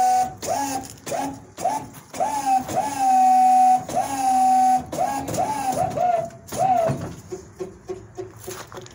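A tow truck boom's powered motor whining up in a series of short runs, each rising quickly in pitch and then holding steady, one held for about a second, as the boom is jogged. Near the end it gives way to a quicker string of short pulses.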